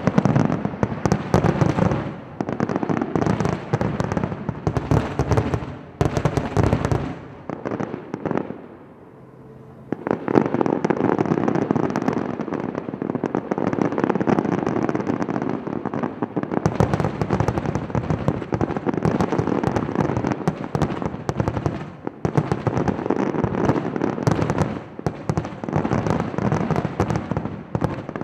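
Aerial fireworks shells bursting in a rapid barrage, many reports crackling and booming almost continuously. About eight seconds in the bursts thin out to a brief lull for two seconds, then the barrage picks up again and keeps going densely.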